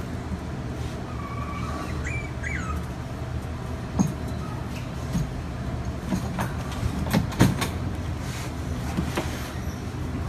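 Puppies giving a few faint, high squeaks and whimpers in the first few seconds, over a steady low hum. Several sharp taps and knocks come later as the dogs scramble about.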